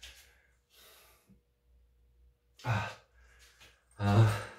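A man breathing out audibly, with two short voiced sighs, the second louder: winded after a hard exercise set.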